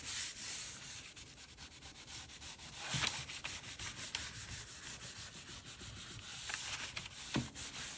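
Rag rubbing back and forth on a wooden board, wiping on gel stain: a continuous hiss of quick strokes, with louder scrapes about three seconds in and again near the end.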